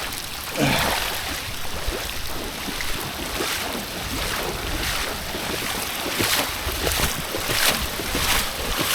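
Heavy rain pouring steadily, with some wind noise on the microphone.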